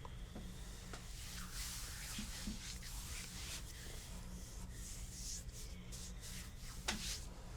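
Hands rubbing and gliding over skin during a massage: soft, uneven swishing friction, with a sharp click about seven seconds in.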